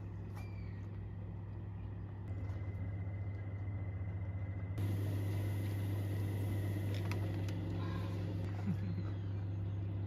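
Steady low electrical hum of a hot tub's pump motor, getting louder in two steps, a little after two seconds and again about five seconds in.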